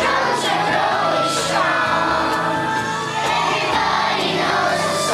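A group of young children singing a song together over an instrumental accompaniment with a steady, repeating bass line.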